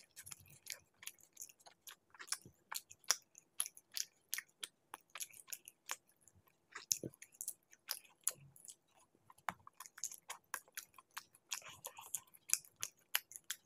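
Close-miked chewing of chicken curry and laccha paratha: an irregular run of short clicks, several a second.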